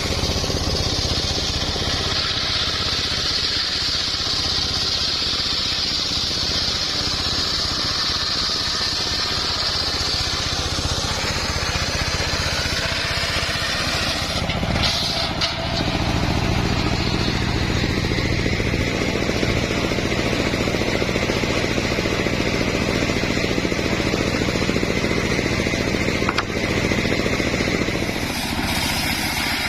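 Engine-driven homemade circular saw running steadily while cutting wood. The engine hum holds throughout, and a high blade whine in the first third drops to a lower pitch after a brief dip near the middle.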